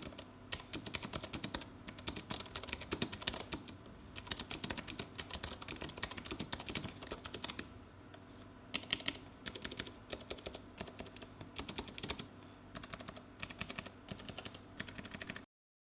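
Typing on a Havit HV-KB390L low-profile mechanical keyboard with Kailh Choc Pale Blue clicky switches: rapid, continuous key clicks in quick runs, with a lull about eight seconds in, cutting off abruptly just before the end.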